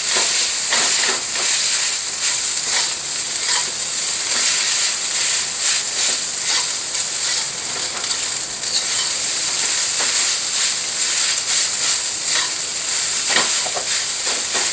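Fried rice sizzling in a hot metal wok while a metal spatula stirs and tosses it, with repeated irregular scrapes and knocks of the spatula against the pan over a steady hiss.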